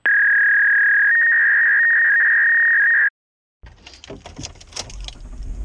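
A loud, steady electronic beep tone, close to a pure whistle, sounds for about three seconds. A second, slightly higher tone joins it about a second in, and it cuts off abruptly. After a brief dead silence come faint clicks and rustling inside a car cabin.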